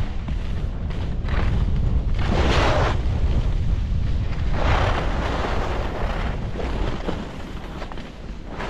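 Wind buffeting the microphone of a moving skier, with the hiss and scrape of ski edges on snow swelling several times as the skier turns, loudest about two and a half and five seconds in.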